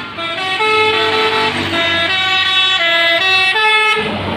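Tour bus's basuri musical horn ('telolet') playing a melody of held notes that step up and down in pitch. The tune stops near the end, giving way to a rush of noise.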